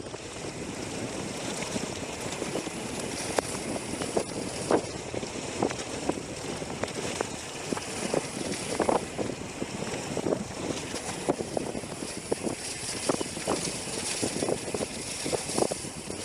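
Mountain bike ridden over a rough trail: steady wind on the microphone and rolling tyre noise, with frequent short knocks and clatters as the bike hits rocks and bumps.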